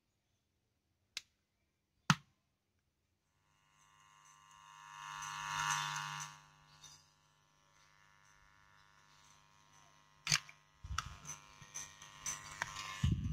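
Speakers driven by a PAM8403 mini amplifier kit giving out a steady electrical buzz that swells and fades over a few seconds, after two sharp clicks as it is connected: the kit's ground connection is broken. A click and some handling knocks follow near the end.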